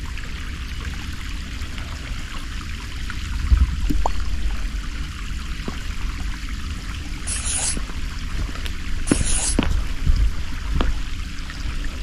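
Shallow creek water trickling over sandstone ledges, with a steady low rumble on the microphone. Two short scuffing noises come in the second half.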